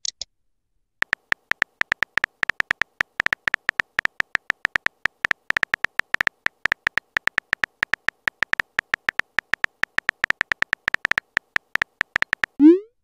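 Rapid, uneven keyboard-tap clicks from a texting app's on-screen keyboard sound effect, several a second, as a message is typed out letter by letter. A short upward swoosh comes just before the end.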